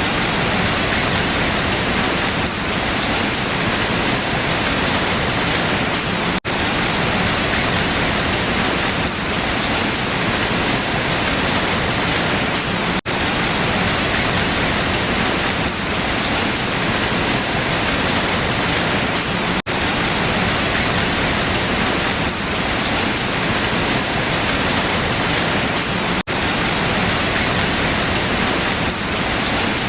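Steady rain falling on leaves, a dense even patter with very brief dips in level about every six and a half seconds.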